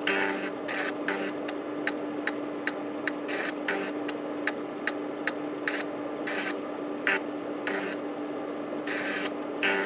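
A Panasonic JU-257A135P 3.5-inch floppy drive working through a diagnostic test: the head stepper clicks at an even pace, about two to three times a second, over the steady hum of the spinning disk motor. The clicks turn irregular about seven seconds in.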